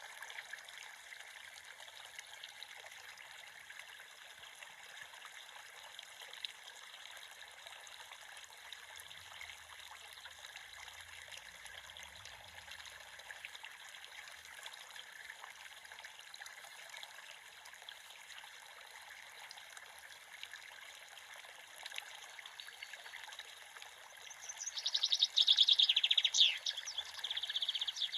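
Creek water trickling steadily. Near the end a bird sings a loud, rapid run of high notes, the loudest sound here.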